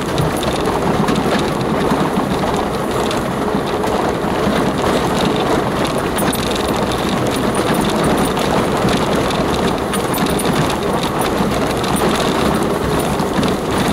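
Off-road vehicle driving slowly over a rough, stony green lane: the engine running under a steady rumble of tyres on loose stone, with scattered small clicks and knocks.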